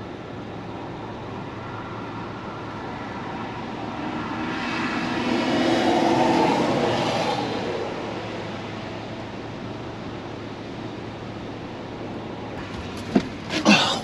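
A road vehicle passes, its sound swelling to a peak about six seconds in and then fading, over a steady rushing background. A few sharp knocks come near the end.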